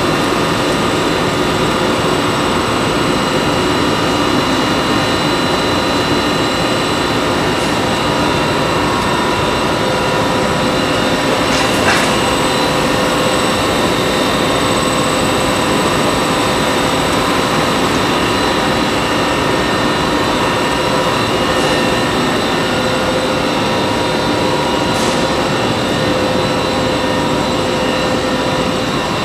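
SPC flooring extrusion line machinery running: a steady, loud mechanical hum and whir with several constant whining tones over it, and a brief click about twelve seconds in.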